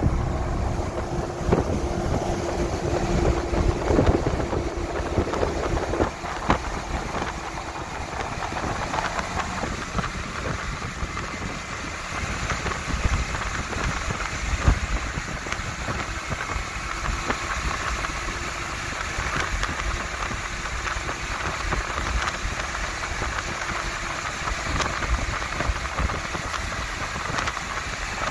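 Cabin noise of a vehicle driving on a wet highway: a steady rumble of engine and tyres with road hiss. A steady drone runs through the first six seconds.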